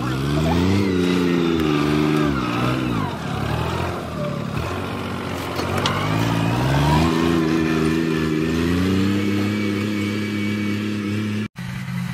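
John Deere 5610 tractor's diesel engine working under load while pulling a disc plough through soil. Its pitch rises, dips about three seconds in, then climbs again and holds steady. Near the end the sound briefly drops out and comes back at a lower, steady pitch.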